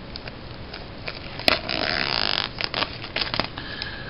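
A Blu-ray box set being opened by hand: a sharp click about one and a half seconds in, then a short sliding scrape of the packaging, followed by a few small clicks and taps.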